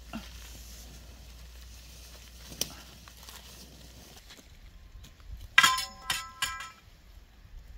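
Metal pepper-support stakes clinking together, several sharp ringing clanks in quick succession about five and a half seconds in. Before them there is only a faint rustle and a single click from the stake puller being twisted on a stake.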